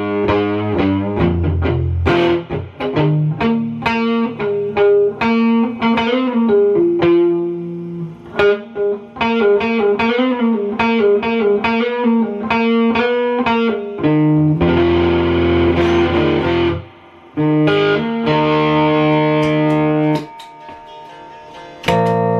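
Electric guitar being played: quick runs of single plucked notes, then held, ringing chords in the last third, with a quieter gap shortly before the end.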